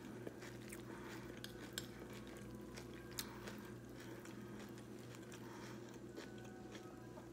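Faint close-up chewing of a mouthful of frosted corn flakes, with a few small clicks, over a low steady hum.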